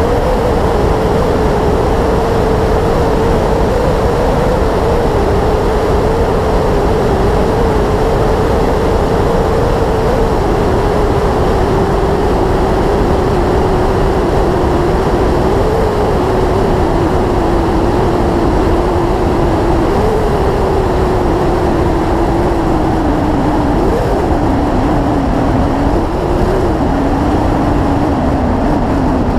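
Yamaha YZF-R6S sport bike's inline-four engine running at a steady cruise, heard from on board. Its note eases slowly lower, with brief small throttle rises about 16, 20, 24 and 27 seconds in, over steady rushing noise.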